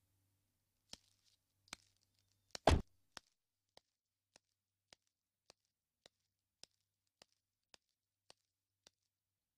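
A car door clicks open and is shut with a single thump, then about ten footsteps follow at a steady walking pace, a little under two a second, on sandy ground.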